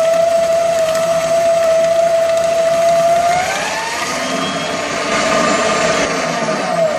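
An office paper shredder's electric motor and cutting rollers shred sheets of paper, heard from inside the machine. The motor's whine holds steady at first, rises in pitch about three and a half seconds in, and starts to drop near the end.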